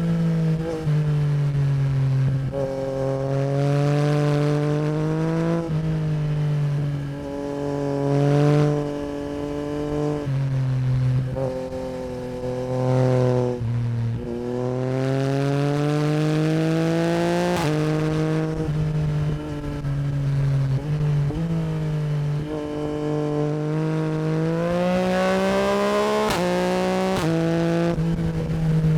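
2024 Yamaha MT-09 SP's 890 cc CP3 crossplane three-cylinder engine through an Akrapovic Racing Line exhaust, riding on and off the throttle. Its pitch climbs and drops repeatedly, with sudden steps at gear changes and two long rising pulls in the second half.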